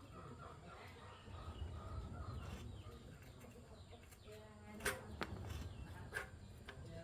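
Chickens clucking in the background, with three sharp knocks about five to six seconds in.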